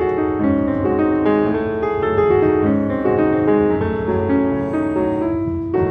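Slow solo piano music, notes overlapping and sustained, over a low steady rumble.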